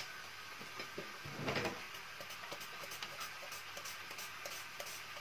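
Water boiling gently in a frying pan with a block of instant noodles in it: a faint steady hiss with small scattered pops. A short handling noise comes about a second and a half in.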